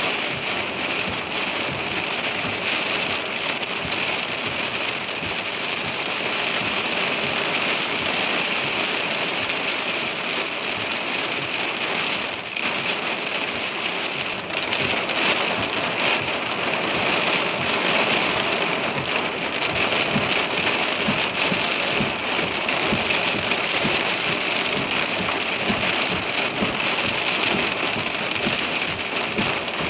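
Torrential thunderstorm downpour, a storm-whipped cloudburst: heavy rain falling steadily, dense with the patter of individual drops striking.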